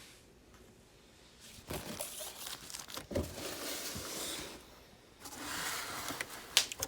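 Paper and cardboard toy packaging rustling and crinkling as it is handled, in two stretches, with a sharp click near the end.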